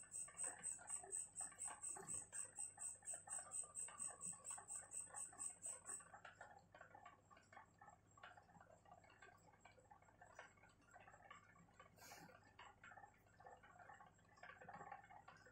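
Faint scratching of a pen on notebook paper during writing. A high-pitched chirp pulses about four to five times a second over it, then drops to a much fainter level about six seconds in.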